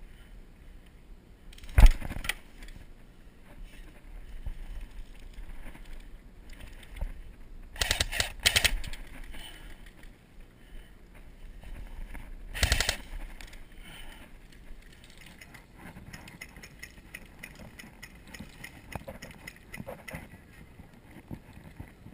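Airsoft firefight: sharp cracks of gunfire and snapping BB hits, with one loud crack about two seconds in, a quick string of about half a dozen around eight seconds, and another crack near thirteen seconds.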